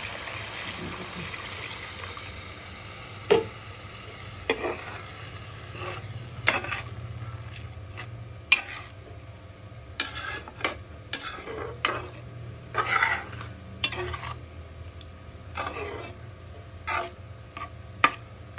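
Milk poured into a hot steel kadhai of ghee-fried grated carrot, with a steady hiss for the first couple of seconds. Then a perforated steel skimmer stirs the mixture, scraping and clinking against the pan repeatedly.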